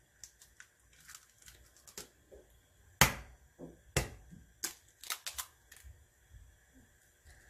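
A raw egg tapped sharply against the rim of a ceramic bowl twice, about a second apart, cracking the shell, followed by lighter clicks as the shell is pulled open.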